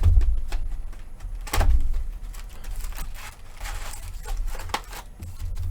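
Trading card boxes and packs being handled and opened: scattered clicks and rustles, with low thumps near the start and about a second and a half in.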